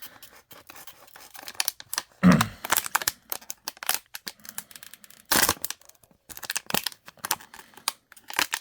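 Small stainless-steel folding knife with an unsharpened blade cutting through material in a sharpness test: tearing, crinkling cuts with small clicks between them, and three louder strokes spaced about three seconds apart.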